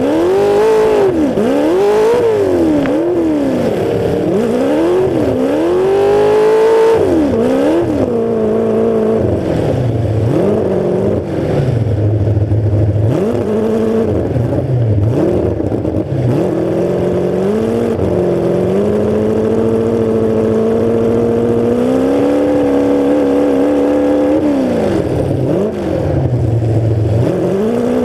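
Demolition derby car's engine running through open exhaust stacks that stick straight up through the hood, revved up and down over and over, then held at a steadier higher pitch for several seconds before swinging up and down again.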